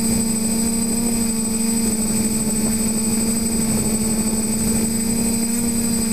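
TBS Discovery quadcopter's brushless motors and propellers buzzing at a steady pitch while it hovers and drifts low, heard from the camera on board, with a thin high whine over it.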